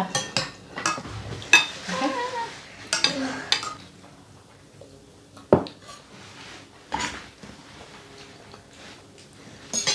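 Spoons and forks clinking against plates and a glass bowl while eating, a scatter of single clinks, the sharpest about five and a half seconds in.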